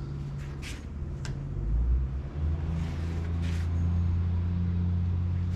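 Steady low rumbling hum, like a running engine, growing stronger about two seconds in, with a few brief faint clicks and rustles of a bicycle tyre being handled.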